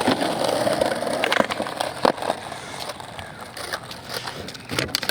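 Skateboard wheels rolling over pavement, with a few sharp clacks of the board striking the ground, the loudest about two seconds in.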